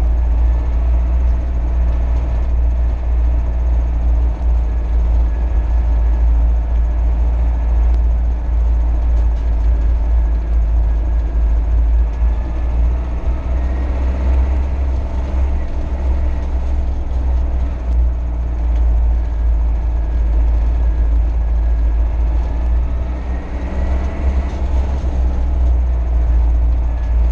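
Mercedes-Benz MB Trac 800 tractor's diesel engine running steadily as it drives along at road speed, heard from inside the cab, with most of its sound a deep bass drone.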